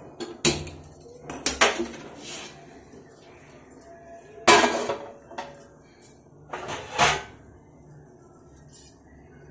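Metal cookware clanking as a large metal pan is handled and set down on a stainless-steel gas stove top: a few separate knocks with short ringing, the loudest about halfway through.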